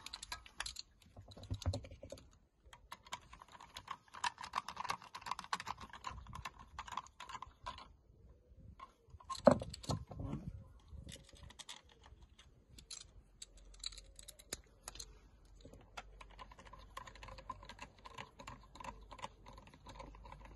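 Quick small clicks and rattles of screws being handled and driven into a plastic car touchpad controller housing with a hand screwdriver, with one sharp knock about nine and a half seconds in.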